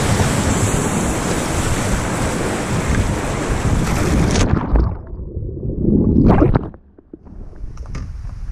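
Whitewater rushing loudly and steadily around a kayak running a river rapid, cutting off abruptly about four and a half seconds in. After that, wind rushes over the microphone, with a louder swell around six seconds in.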